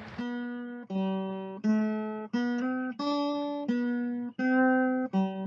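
Acoustic guitar music: plucked chords, each ringing out and fading before the next, a new one about every two-thirds of a second.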